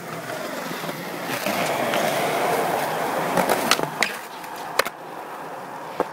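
Skateboard wheels rolling on concrete, then a handful of sharp clacks about three to five seconds in as the board pops onto a concrete ledge and comes off it, with another clack near the end.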